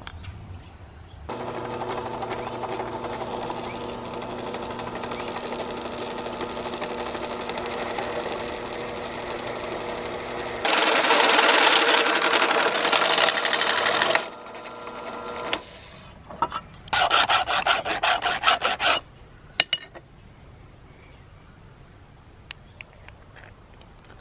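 A drill press motor runs with a steady hum. About ten seconds in, the bit bites into a metal pipe cap with a louder, harsher cutting noise for a few seconds, and then the motor stops. A quick run of rasping scrapes follows.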